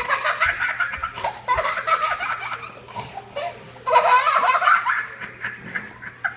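A girl laughing hard in two long bursts, the second starting about four seconds in.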